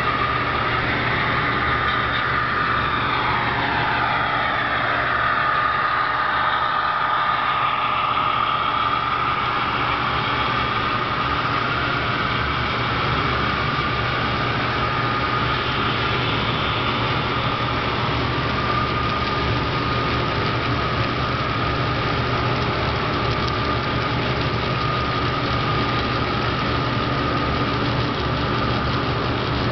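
HO scale model trains running on a layout: a steady diesel-engine sound, typical of DCC sound-equipped locomotives, over a steady high motor whine and hum. A few seconds in, a whine glides down in pitch.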